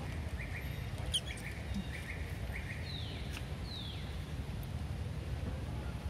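Short high-pitched animal calls: a quick run of chirps, then two falling squeaks, over a steady low rumble.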